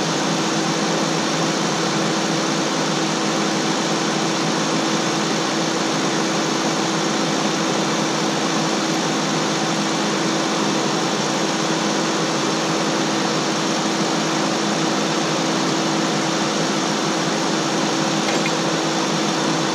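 Steady, unchanging mechanical drone with a constant hum, like a running motor or fan.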